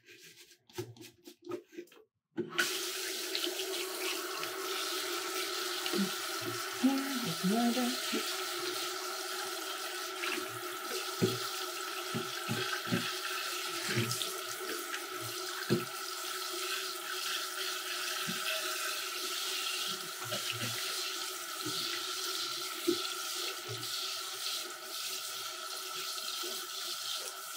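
Tap water running from a faucet-mounted water filter into a sink. It comes on suddenly about two seconds in and runs steadily, with occasional light knocks and splashes as a glass blender cup is rinsed under it.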